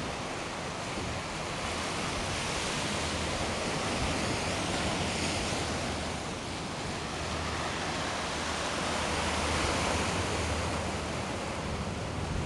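Mediterranean surf breaking and washing over flat rocks, a steady rushing hiss that swells twice, with low wind rumble on the microphone.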